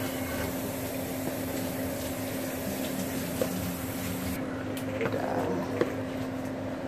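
Soft, wet squishing of fermented glutinous rice being tipped from a plastic container into a thick simmering sugar-and-coconut mixture, with a few small knocks. A steady low hum runs underneath.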